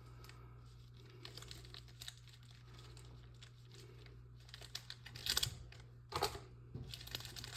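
Wrapped trading-card packs and their box being handled, crinkling and rustling with light clicks, and a few louder rustles in the second half, over a steady low hum.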